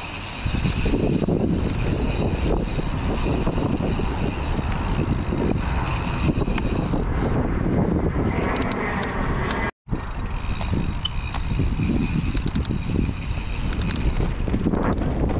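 Mountain bike rolling down a packed-dirt trail: tyres rumbling over the dirt and wind buffeting the camera's microphone, over a steady high buzz from the coasting rear freehub. The sound cuts out completely for a split second about two-thirds of the way through.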